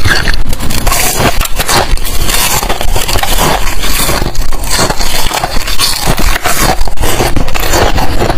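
Loud, dense crunching and crackling of ice being bitten and chewed close to the microphone: thin, frost-covered shards of balloon ice.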